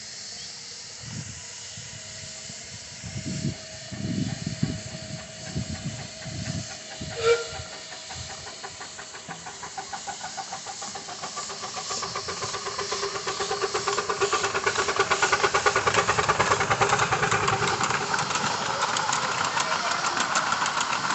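Miniature live-steam locomotives hissing, with uneven low puffs at first, then a passing train's fast, even rhythmic beats over the steam hiss, building from about ten seconds in and loudest in the second half.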